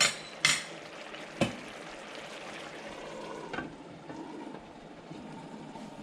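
Squid adobo sizzling and simmering in a pan, with a steady hiss, while a utensil stirs it and knocks sharply against the pan four times in the first four seconds.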